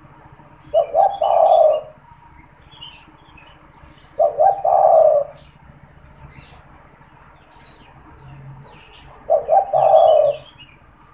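Spotted dove (tekukur) cooing three times, a few seconds apart. Each phrase is two or three short notes run into a longer drawn-out coo. Small birds chirp faintly in the background.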